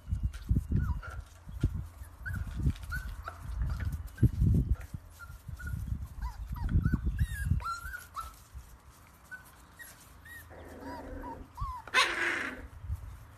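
Puppies whimpering with many short high whines, over repeated low thuds. About twelve seconds in, one gives a short, loud bark.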